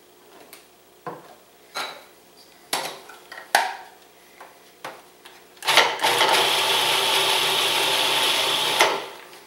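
A few knocks and clatters as the food processor's feed-tube pusher is handled, then the food processor's motor runs for about three seconds, blending herbs and olive oil into a marinade, and cuts off suddenly.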